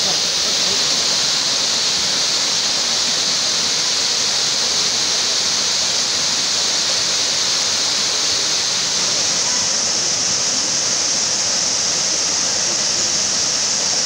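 The Dzhur-Dzhur waterfall pouring off a 15-metre limestone ledge in a wide stream into a deep pool: a steady, even rush of falling water.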